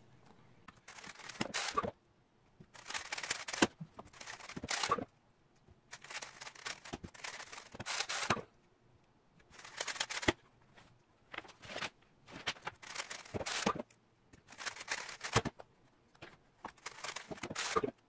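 GAN 356 XS 3x3 speedcube being turned very fast: repeated bursts of rapid plastic clicking, each a second or two long, with short pauses between them and several stopping abruptly.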